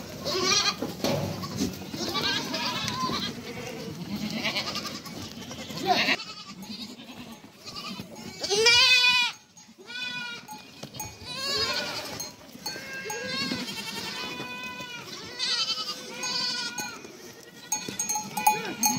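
A herd of goats, nannies and young kids, bleating over one another as the kids are reunited with their mothers. Many overlapping calls come high and low, with one loud quavering bleat about halfway through.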